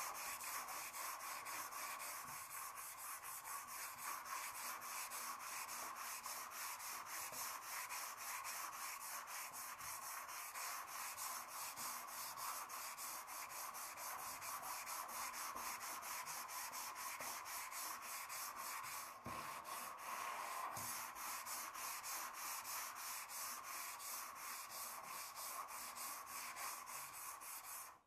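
Sanding: steady, evenly repeated rubbing strokes of abrasive on a surface, with a brief break about nineteen seconds in.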